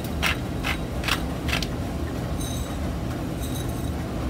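Metal spoon stirring mashed potatoes against the side of a stainless steel pot: rhythmic scraping strokes about two a second, then two brief high-pitched squeals in the second half.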